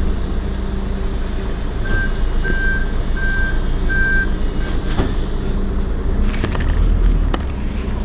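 Heuliez GX 327 city bus idling with a steady low engine hum. A row of five short high beeps sounds about two seconds in, and clicks and a brief low swell come near the end.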